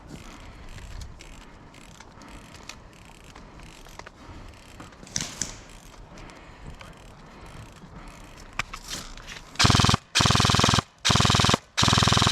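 Airsoft gun firing on full auto: several short bursts of rapid shots in quick succession near the end, loud and close. Before that only faint rustling and an occasional tick.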